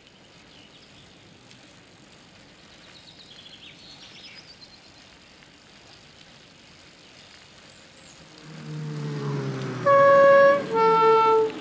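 Police car's two-tone siren sounding once near the end, a higher note and then a lower one, each held about half a second. Just before it the car's engine grows louder as it comes up from behind.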